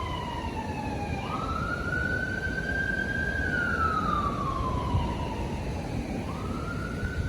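Emergency vehicle siren wailing: a slow falling-and-rising wail whose pitch drops, jumps back up about a second in, climbs and holds, then slides slowly down again before jumping up once more near the end.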